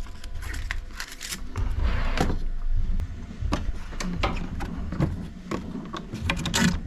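Hands handling the plastic parts of a 3D printer's AMS filament feeder and its PTFE feed tube: irregular plastic clicks, knocks and rubbing, with the sharpest clatter near the end.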